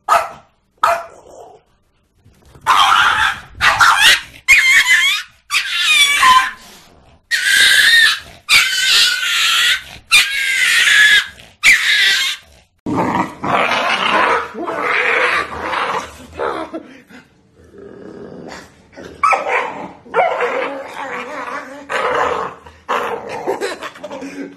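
Dogs barking, yapping and growling in a long series of loud, short calls with wavering pitch; the calls change in character about halfway through.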